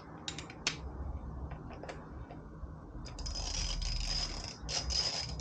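A tool driving a highway-peg screw into a motorcycle valve cover: a few sharp clicks, then from about three seconds in a steady mechanical whir with a high tone.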